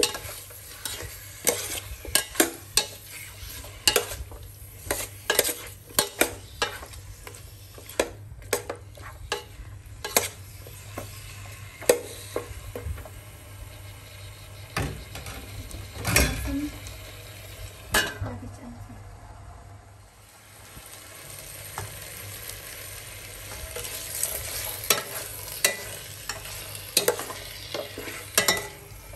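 A metal spoon stirring chunks of meat frying in a stainless steel pot, clinking and scraping against the pot over a steady sizzle. The clinking pauses briefly about halfway through and again a few seconds later.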